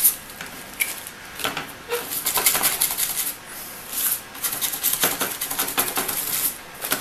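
A toothbrush scrubbing an alcohol-wet circuit board, giving rapid scratchy strokes in bursts of a second or two with short pauses between them.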